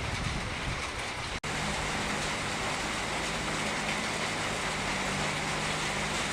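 Heavy road-paving machinery running steadily, its engine humming under a broad hiss of rain. The sound drops out for an instant about a second and a half in, at an edit.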